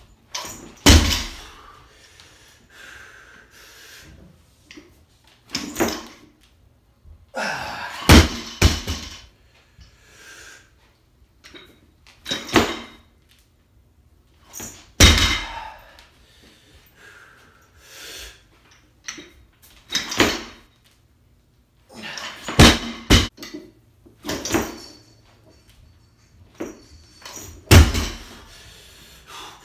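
Barbell loaded with heavy bumper plates being dropped and set down on a lifting platform between snatches: repeated loud thuds and clanks a few seconds apart, with quieter scuffing between them.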